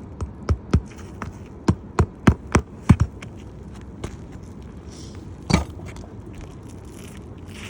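Hammer blows on an asphalt-shingle roof: about nine sharp strikes in quick, uneven succession over the first three seconds, then a single strike a couple of seconds later.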